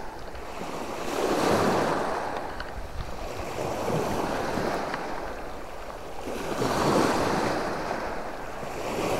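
Small sea waves breaking and washing up the shore, the wash swelling and fading about three times, with some wind on the microphone.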